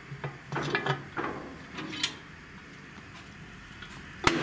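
Metal lid lifter working the lid of a cast-iron Dutch oven as it is lifted off: a run of metallic clanks and scrapes in the first second or so, a lighter click about two seconds in, and a loud metallic clank near the end.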